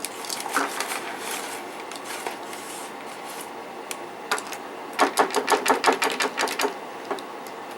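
A kitchen utensil clicking rapidly against a bowl, about eight taps a second for a couple of seconds, as cornstarch is mixed into the soy sauce and water. Scattered single taps come before it.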